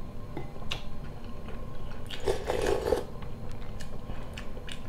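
A man eating borscht from a wooden spoon close to the microphone: wet mouth sounds of sipping and chewing, with scattered small clicks and one longer slurp a little past the middle.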